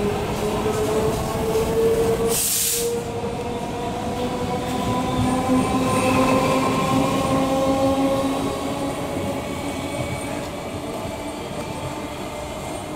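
Electric multiple unit (EMU) local train running, its traction motors giving a whine of several steady tones that slowly rise in pitch over the rumble of the wheels on the track. A short burst of hiss comes about two and a half seconds in.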